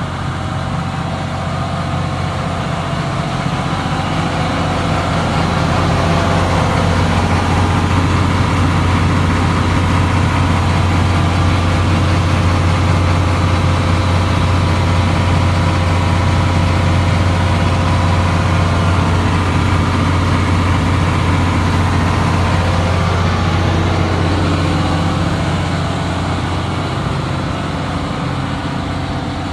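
Terex T360C mobile generator's Cummins diesel engine running steadily with a low, even hum; it grows louder a few seconds in and eases off again near the end.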